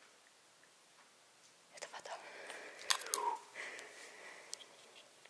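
Near silence for a little under two seconds, then hushed whispering with small sharp clicks and crunches.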